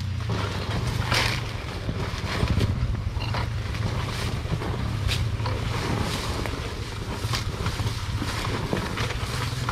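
Underbone motorcycle engine running steadily at low revs on a rough downhill trail, with wind on the microphone and a few short clatters from the bike over the rough ground.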